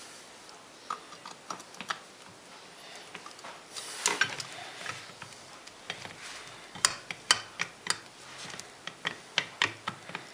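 Irregular clicks, taps and knocks of hard parts being handled, with a short rustle about four seconds in and a run of louder clicks in the second half.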